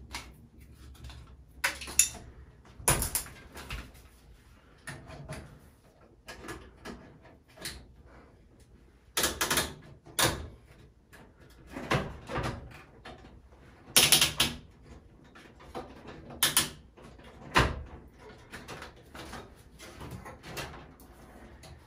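LED light tubes being pushed and twisted into the sockets of a medicine cabinet's side light fixtures. About a dozen sharp plastic clicks and knocks come at irregular intervals, with handling and rubbing between them.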